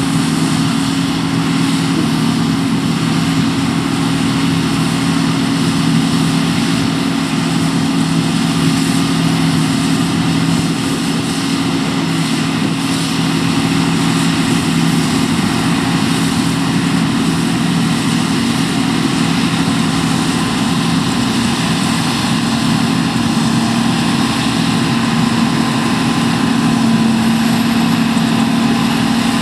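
John Deere T560 combine harvester running steadily under load, its engine note shifting slightly about two-thirds of the way through.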